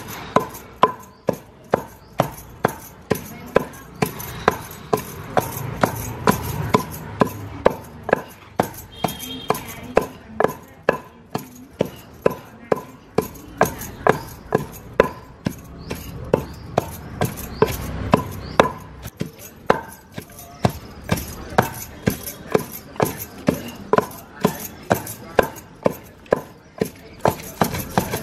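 Rhythmic knocking of a hand tool striking food on a hard surface while chutney is made, about two strokes a second, each with a short ringing tone.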